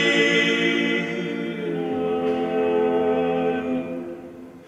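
Male vocal quartet of two tenors, baritone and bass singing a cappella in German, holding long sustained chords. The chord changes about two seconds in and the voices fade away near the end.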